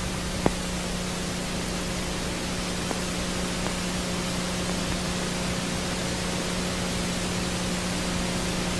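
Steady hiss with a low, even hum underneath and a single faint click about half a second in: the soundtrack's background noise with no speech or music over it.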